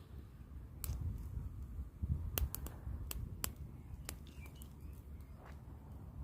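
Driftwood campfire crackling: irregular sharp snaps, several close together around the middle, over a low steady rumble. A bird chirps faintly about four seconds in.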